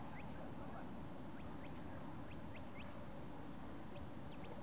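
Shepherd's whistle commands to a working Border Collie: a string of short rising chirps, then about four seconds in a longer high whistle that rises, holds and drops. Steady low background noise runs underneath.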